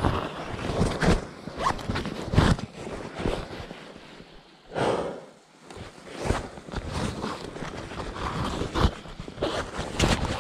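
Clothing and backpack fabric rustling and scraping against a body-worn camera's microphone, in irregular bursts as gear is handled, with a short lull about halfway through.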